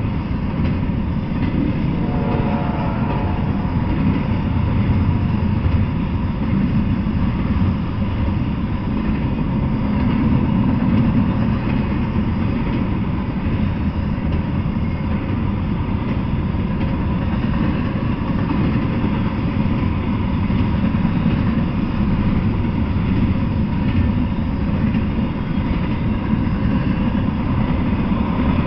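Double-stack intermodal freight train rolling past: a steady, unbroken rumble of steel wheels on the rails.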